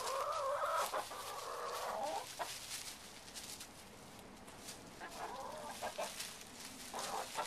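Hens clucking while they feed: a drawn-out call through the first two seconds or so, then shorter clucks about five seconds in and again near the end, over scattered soft clicks and rustles.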